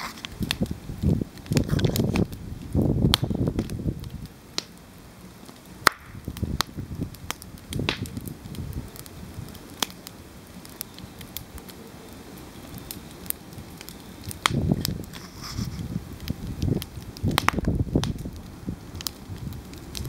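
Campfire crackling, with sharp irregular pops and snaps of burning wood. Louder low rumbling comes in twice, near the start and again in the second half.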